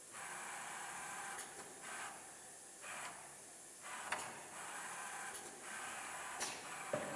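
Blister packaging machine running: irregular hissing bursts, some brief and some over a second long, with a few sharp clicks.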